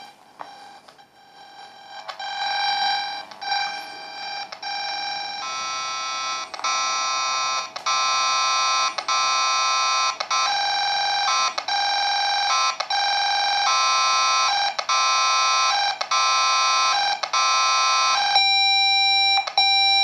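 Cable-tracing amplifier probe's speaker sounding the tone-generator signal picked up from the cable's wires: an electronic alarm-like tone, first short beeps about every half second, then longer beeps about once a second. Near the end the pattern switches to a steadier single tone.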